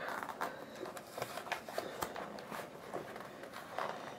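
A mail parcel being opened by hand: packaging rustling and crinkling, with many small irregular clicks and scrapes.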